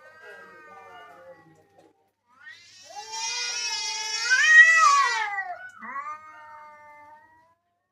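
A pet animal giving three drawn-out vocal calls. The middle call is the longest and loudest, and it rises and then falls in pitch; the first is faint and the last is shorter.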